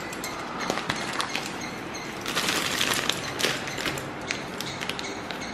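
Foil packaging pouch crinkling and crackling as it is handled and opened by hand, with a denser burst of rustling about two and a half seconds in.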